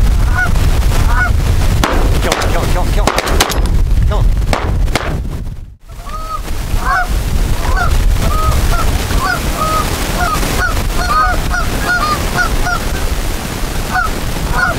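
Canada geese honking, many short calls repeated over and over, over heavy wind rumble on the microphone.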